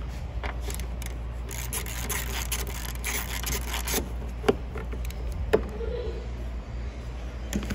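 Gloved hands and a tool scraping and rubbing against the plastic undertray beneath a Honda Civic's front bumper while a fastener is worked loose, with two sharp clicks in the second half. A steady low hum runs underneath.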